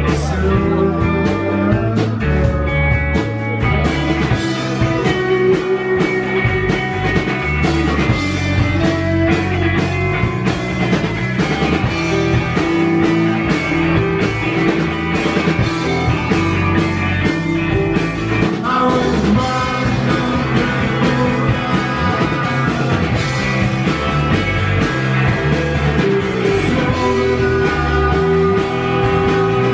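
Live rock band playing: electric guitars, bass guitar and drums.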